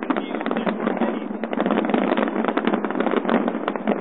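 Fireworks display: a dense, unbroken barrage of bangs and crackles, many reports a second overlapping one another.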